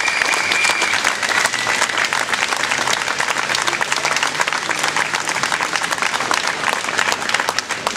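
Crowd of demonstrators applauding steadily, with a thin high tone held for about a second at the start; the clapping eases slightly near the end.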